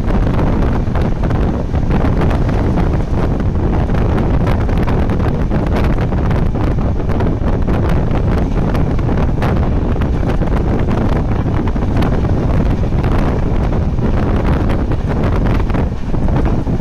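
Wind buffeting the microphone over the steady rumble of a fast-running LHB passenger train, with frequent short clicks from the wheels on the track.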